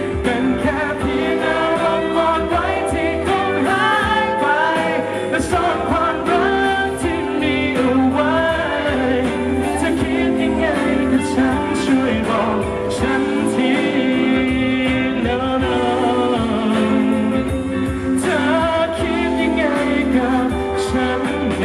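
A male pop vocalist singing live into a handheld microphone over backing music, his melody gliding up and down over sustained accompaniment.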